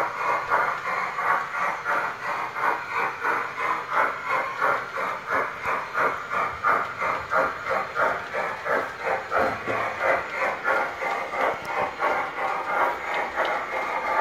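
LGB G-scale model steam train running on its track, its sound unit chuffing in an even beat of about three a second over a steady hiss.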